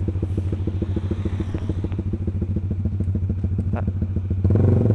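Honda CB150R's single-cylinder four-stroke engine running while the motorcycle is ridden, a steady, even putter of exhaust pulses that grows louder about four and a half seconds in.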